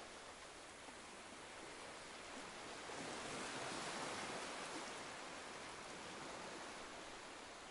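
Gentle surf: a soft rush of water that swells slowly to a peak about four seconds in, then eases off.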